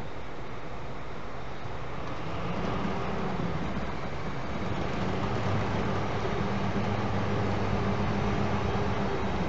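Passenger train of old coaches rolling slowly past, with a steady low hum that grows louder about two seconds in.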